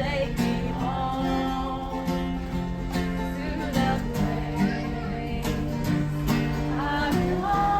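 Country-style background music with plucked acoustic guitar and a steady beat.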